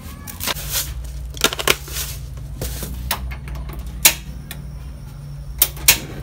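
Scattered clicks and knocks as an aluminium pot of snails is handled and set on a portable gas stove, the shells clinking against the metal. Two sharp clicks close together near the end, with a hand on the stove's control knob.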